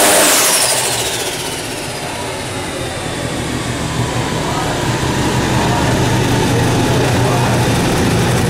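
Turbocharged Mazda 20B three-rotor engine dropping off a full-throttle dyno pull: a high turbo whistle falls in pitch and fades over the first couple of seconds while the engine settles to idle. The idle note then grows slowly louder.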